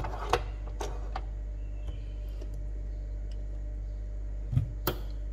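A few light plastic clicks and knocks from a hand handling the capsule lever and head of a Nespresso Lattissima Touch. Near the end comes a dull knock followed by a sharp click, the loudest sound, over a steady low hum.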